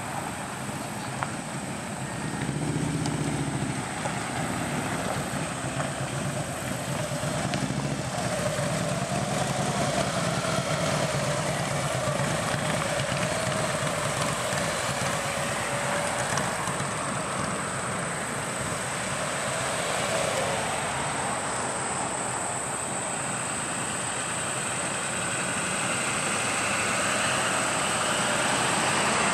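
Motorcycle engines running as a procession of touring motorcycles rides past one after another, a continuous engine noise that grows louder near the end as another bike approaches.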